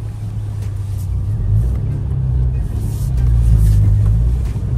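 Muffler-deleted 2.0-litre turbocharged four-cylinder engine of an all-wheel-drive Alfa Romeo Giulia, heard from inside the cabin, running under throttle on snow and getting louder about two seconds in as it revs harder.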